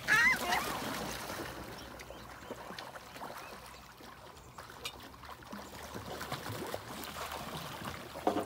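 Gulls give a short burst of loud calls, then splash and flap their wings on the water as they scramble together, with scattered sharp slaps and splashes.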